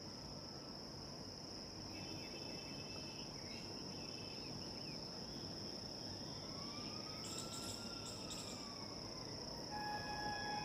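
Steady high-pitched chirring of crickets. Near the end a distant train horn begins, sounding one held note.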